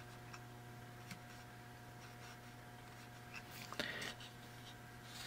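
Faint taps and scratches of a sharp pencil point marking a wooden base, over a steady low hum.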